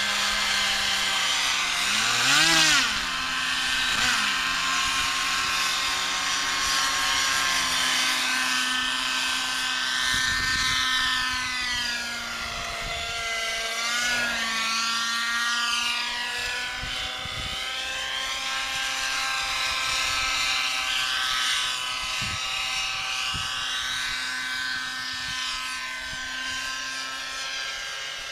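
600-size radio-controlled model helicopter flying aerobatics: a steady whine from its motor and spinning rotors, its pitch swooping up and down again and again through the manoeuvres. It grows slowly fainter towards the end.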